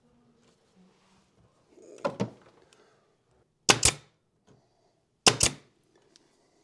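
Pin nailer firing three times, about a second and a half apart, driving 1-inch pins through the tops of oak balusters into the handrail. Each shot is a sharp double snap.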